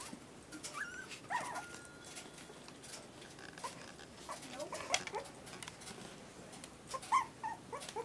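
Several young puppies whimpering and squeaking in short high-pitched calls, over light scuffling and rustling as they move about on bedding and newspaper.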